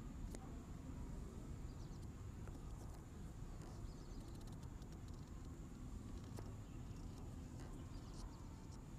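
Faint steady background noise with a low hum, a thin steady high-pitched tone and a few faint scattered ticks.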